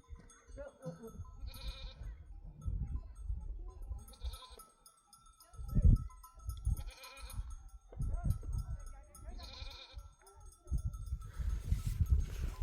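A flock's bleating, with short calls repeating every couple of seconds, over low irregular rumbling.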